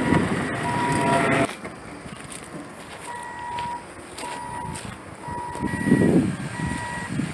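A vehicle's reversing alarm beeping over and over, about one beep a second. During the first second and a half a loud rushing noise covers it, then cuts off suddenly.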